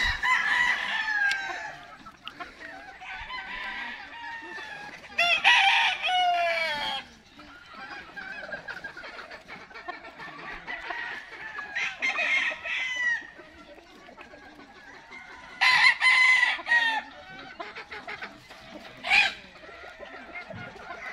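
Gamefowl roosters crowing about five times, each crow lasting a second or two, with hens clucking softly between the crows.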